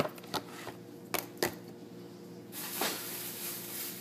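Groceries being handled: a sharp click and a few light knocks as items are picked up and set down, then a plastic grocery bag rustling from a little past halfway. A faint steady hum runs underneath.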